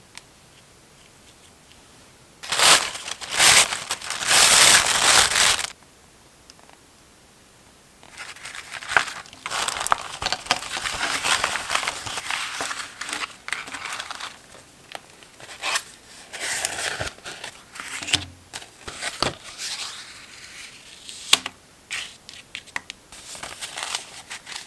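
Paper crinkling and tearing loudly for about three seconds, starting about two and a half seconds in. From about eight seconds in comes a long stretch of paper rustling and crinkling, broken by small sharp clicks and taps.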